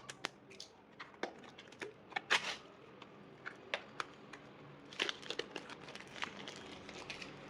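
Product packaging being opened by hand: crinkling and rustling with scattered sharp clicks, a louder tearing rustle about two seconds in and another cluster of crackles around five seconds in.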